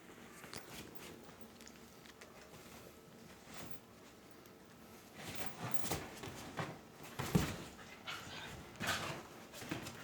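Small dogs making a run of short sounds that starts about halfway through, after a quiet first half.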